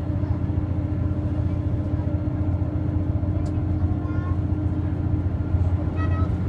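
Passenger train running steadily, a constant low rumble with a steady engine hum.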